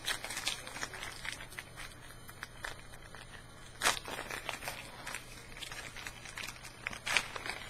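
Foil wrapper of a trading-card pack being torn open and crinkled in the hands, with the cards handled. A run of small crackles, with a sharper crackle about four seconds in and another near the end.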